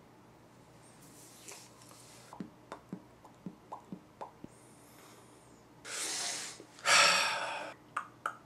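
A man's breathing while he thinks: a string of soft clicks, then a breath in about six seconds in and a loud, long sigh out about a second later.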